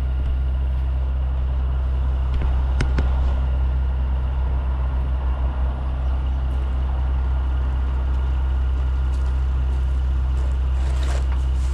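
Heavy truck engine idling steadily, a constant low hum, with a single sharp click about three seconds in.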